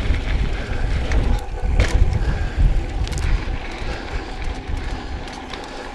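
Mountain bike riding on a dirt trail: wind buffeting the microphone in a loud, uneven rumble, over tyre noise with scattered sharp clicks and rattles from the bike and trail.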